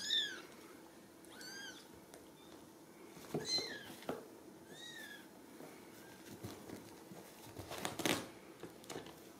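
Ragdoll kitten giving four short, high-pitched mews, each rising and falling, over the first five seconds. Soft rustling from handling runs between them, loudest about eight seconds in.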